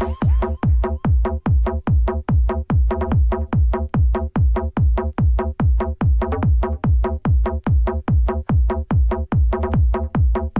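Electronic dance music with a steady, pounding four-on-the-floor kick drum and a repeating bass line. It is a stripped-down section: the hi-hats and high synths are cut out.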